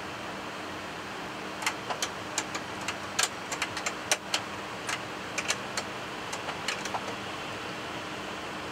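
Steady flight-deck noise of a McDonnell Douglas MD-11 taxiing after landing: a hiss with a faint low hum. From about a second and a half in until about seven seconds in, it is broken by some twenty sharp, irregular clicks.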